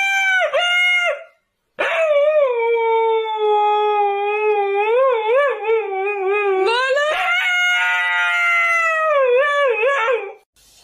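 A husky howling in long, drawn-out calls. After a short call and a brief pause, one long howl begins about two seconds in, wavering in pitch, jumps higher about seven seconds in, and trails off near the end.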